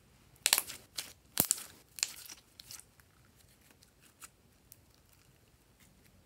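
Glossy slime squeezed and kneaded by hand, giving sticky crackling and popping as air pockets burst, in a busy cluster over the first three seconds, then a few scattered clicks.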